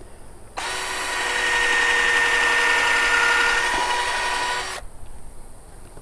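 Cordless drill running in one steady stretch of about four seconds as it works into the corner of a pallet-wood box. It starts and stops suddenly.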